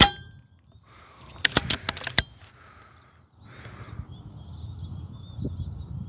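Air rifle shot: a sharp crack with a short metallic ring right at the start. About a second and a half later comes a quick run of about six metallic clicks.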